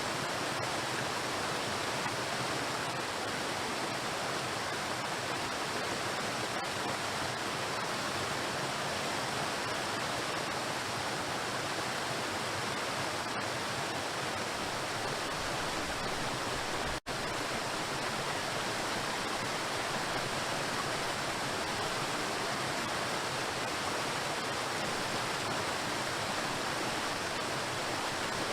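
Waterfall, with water pouring onto rocks in a steady, even rush. There is a brief dropout in the sound about 17 seconds in.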